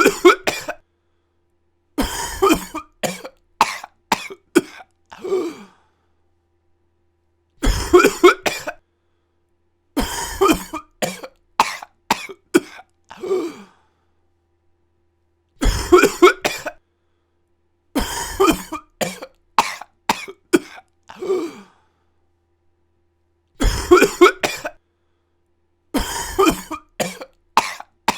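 A person coughing in fits: a short cluster of coughs, then a longer run of coughs that trails off into a lower, voiced, throat-clearing cough. The same pattern repeats about every eight seconds, with dead silence between fits.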